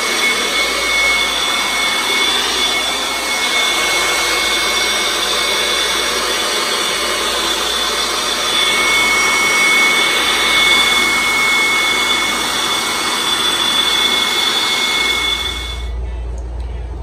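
DeWalt electric air blower running at full speed on its final test after a new fan blade was fitted: a steady high whine over a rush of air. It cuts off near the end.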